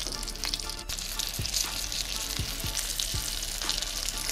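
Breaded surf perch fillets frying in olive oil in a cast-iron skillet on low heat: a steady sizzle with scattered crackles and pops.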